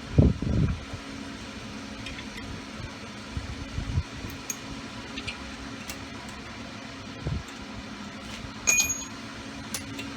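Small metal parts being handled: a few dull knocks and light clinks, with one bright ringing metal clink near the end. A steady fan-like hum runs underneath.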